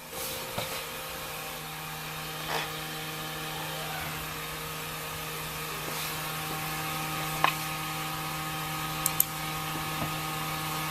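Optical disc drive spinning with a steady whirr and hum that firms up a little under two seconds in, with a few light clicks scattered through.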